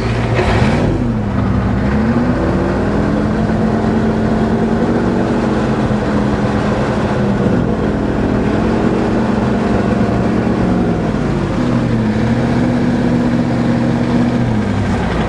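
Ford truck engine revved up and held at raised speed, sagging and climbing back twice before dropping back near the end. The owner says it lacks power and is missing (misfiring).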